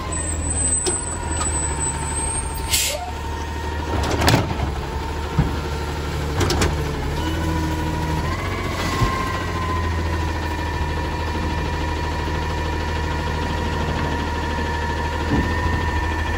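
Side-loading refuse truck idling, with a short air-brake hiss about three seconds in and a few metal clunks. A steady hydraulic whine shifts up in pitch about eight seconds in as the automated arm works toward the cart.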